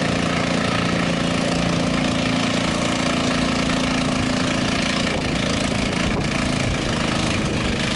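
Modified lawn tractor's engine running at a steady speed, its even note breaking up about five seconds in.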